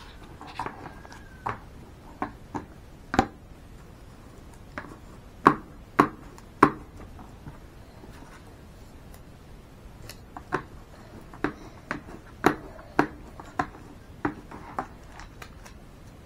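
Irregular taps and knocks of a felt-tip marker pressing and patting tape down onto baking paper on a tabletop, three louder knocks in quick succession about halfway through and another run of taps near the end.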